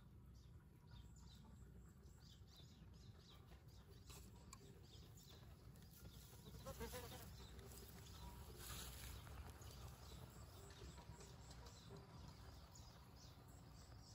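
Near silence outdoors: a low wind rumble on the microphone, with a brief faint animal call about seven seconds in.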